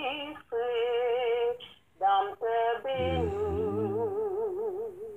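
A singing voice holding long notes with strong vibrato, in short phrases with brief breaks. Lower accompanying tones come in about three seconds in, and the singing cuts off abruptly near the end.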